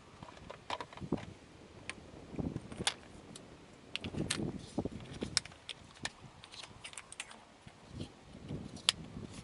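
Small gear being handled by hand: irregular clicks, small knocks and rustling, with one sharp click near the end.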